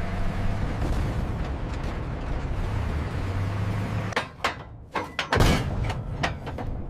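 M48 Patton tank's Continental V12 engine running steadily, a low even rumble. About four seconds in it gives way to a quick run of sharp cracks and bangs.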